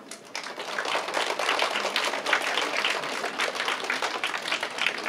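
Applause: many people clapping, starting about half a second in and going on steadily.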